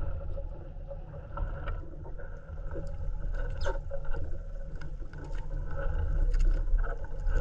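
Outrigger fishing boat on open water: a steady low rumble with a faint hum, water slapping against the hull, and scattered small knocks.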